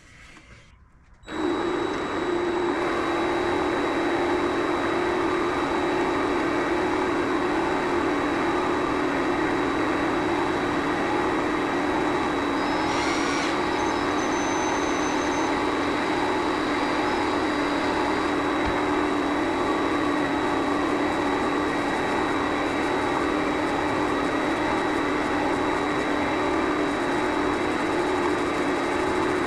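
Vevor MX400 mini lathe starting up about a second in and running steadily while turning a brass part, with a constant high motor whine over the machine noise. A brief higher squeal comes about halfway through.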